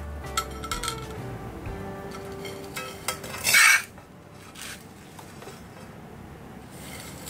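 Metal spatula scraping and clinking against a ZWILLING Nova Plus wok and a ceramic plate while lifting chicken wings in dry fried-garlic and breadcrumb coating, with a few light clinks early on and one loud scrape about three and a half seconds in.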